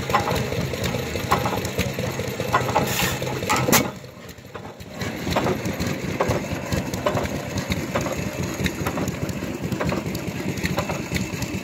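6 hp Ontario Wind Engine & Pump Co. 'Toronto' single-cylinder hit-and-miss gas engine running slowly, with sharp knocks coming at uneven gaps of roughly half a second to a second.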